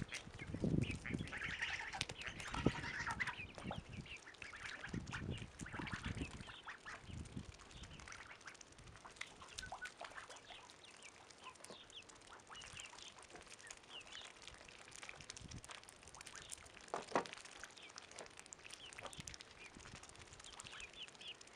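Domestic ducks quacking and young geese calling, a scatter of short calls that is busiest in the first few seconds and thins out after. A young goose flaps its wings at the start.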